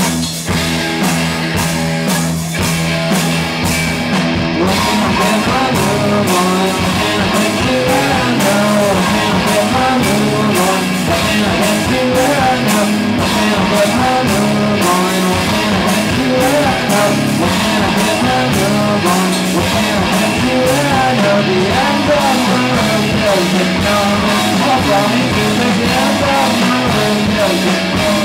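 A rock band playing live and loud, with a steady drum beat running under the full band.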